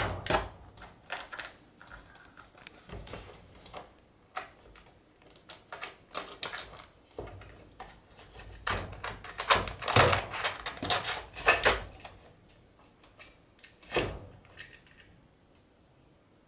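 Irregular knocking and clattering as a kitten paws and noses at the wooden slatted floor of its cage, hunting for dropped food. There is a sharp knock at the very start, a busy run of quick knocks in the middle, and one more sharp knock near the end.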